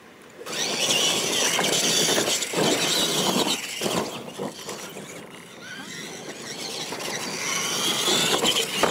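Two electric radio-controlled monster trucks of the Tamiya Clod Buster type take off from the start about half a second in and race over a dirt track, their motors whining. The sound eases off briefly midway and builds again toward the end.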